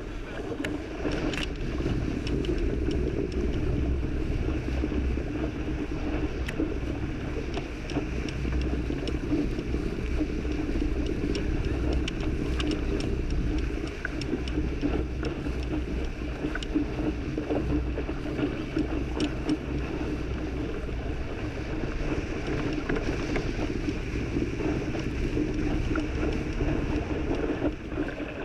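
Water rushing and spraying past the hull of a small sailboat sailing fast in a fresh breeze, mixed with wind noise. It is a steady rushing sound with scattered faint ticks.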